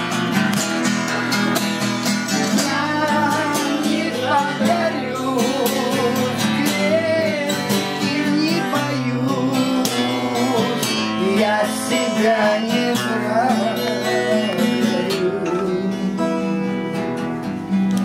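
Acoustic guitar strummed and picked in a Gypsy (Roma) song, with a voice singing a wavering melody in places.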